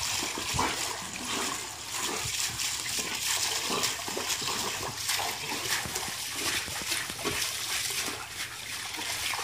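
Water splashing as a dog wades and thrashes through shallow pool water, with a garden hose in her mouth spraying water.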